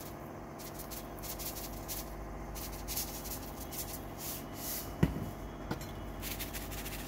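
Salt being shaken from a salt container over crisp fried garlic chips in a stainless steel mesh strainer: a run of short, repeated rustling hisses, with a sharp knock about five seconds in.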